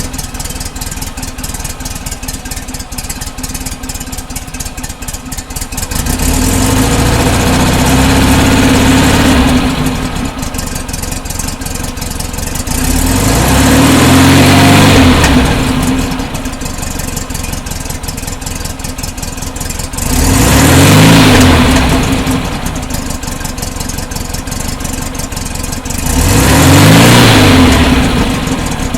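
1968 Porsche 912's rebuilt air-cooled flat-four engine idling, then revved up four times, each rev lasting a few seconds before dropping back to idle.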